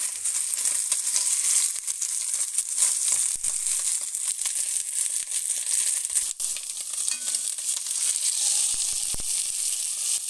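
Rack of lamb searing in hot fat in an enamelled cast-iron casserole: a steady high sizzle with fine crackling.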